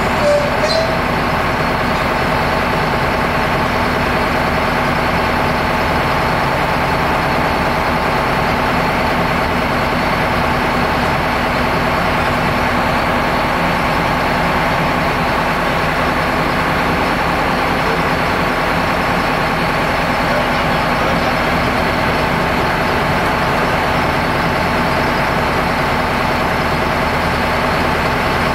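Diesel locomotive engine idling steadily while the loco turns on a turntable, with a brief squeak about half a second in.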